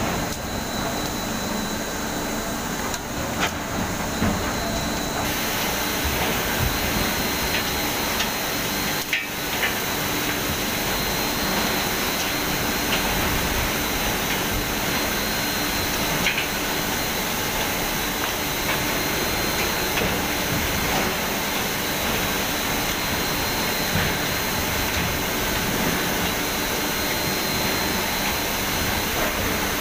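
Steady din of palm oil mill machinery around a chain-driven scraper conveyor carrying oil palm fruit bunches, with a thin high steady whine and a few scattered light knocks.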